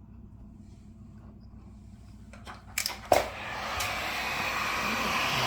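A few handling clicks, then a loud click about three seconds in as an industrial heat gun switches on and runs with a steady blowing hiss.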